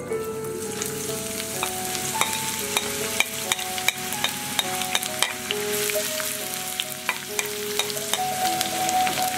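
Sliced onions sizzling as they drop into hot oil in a frying pan, with short clicks and scrapes of a wooden spatula pushing them off a plate and against the pan.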